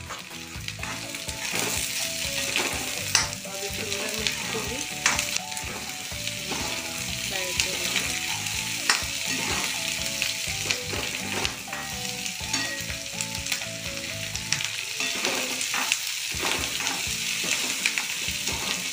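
Diced capsicum, onion, garlic and ginger sizzling in hot oil in a wok, stirred with a spatula that clicks and scrapes against the pan now and then.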